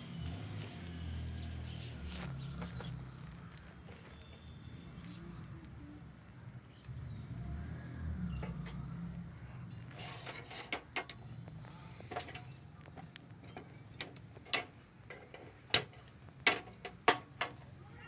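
Cookware being handled at a gas stove: a low rumble at first, then a short scraping rush about ten seconds in and a quick run of sharp metallic clicks and knocks near the end as an aluminium saucepan is set on the burner.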